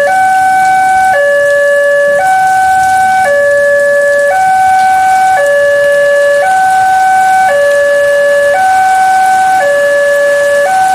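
Railway level-crossing warning alarm sounding: an electronic two-tone signal that alternates between a higher and a lower tone about once a second, the crossing's warning that a train is approaching.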